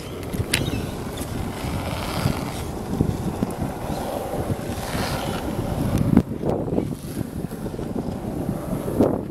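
Wind buffeting the microphone while riding a skateboard, over the rumble of its wheels rolling on asphalt, with two louder knocks, about six seconds in and near the end.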